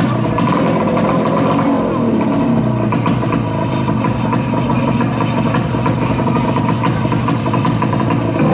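Small BT9-class racing speedboat engines running loud at the start line, revved up and down a few times, rasping like motorcycle engines.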